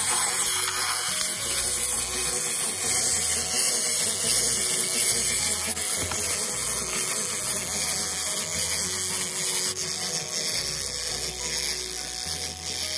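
Clockwork whirring of a wind-up walking toy's gear mechanism as its feet step it along a table, running steadily and slowly getting quieter as the spring unwinds.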